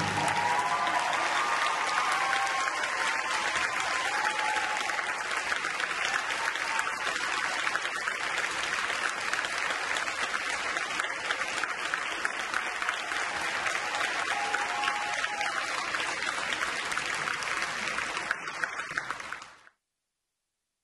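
Theatre audience applauding steadily, cut off abruptly near the end.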